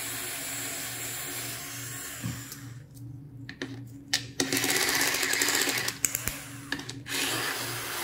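Black+Decker cordless screwdriver running in bursts with short pauses as it backs out the screws that hold the ventilator's battery packs, two screws per battery.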